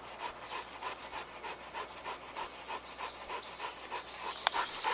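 Dog panting quickly, about four breaths a second, with one sharp click near the end.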